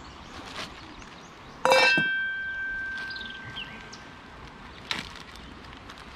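A single sharp metallic clink that rings on with a clear, fading tone for about three seconds, followed near the end by a fainter click.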